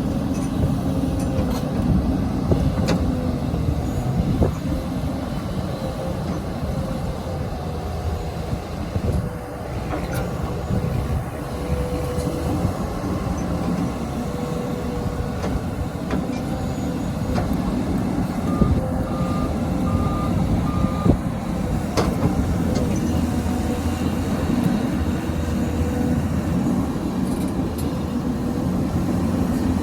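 XCMG XE215C excavator's diesel engine running steadily under working load, with a few sharp clanks. About two-thirds of the way in, four short beeps of a reversing alarm sound.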